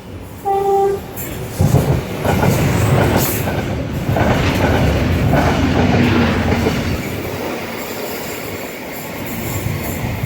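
Loram rail-grinding train giving a short horn blast, then passing close by with loud rumbling engines and wheel noise on the rails.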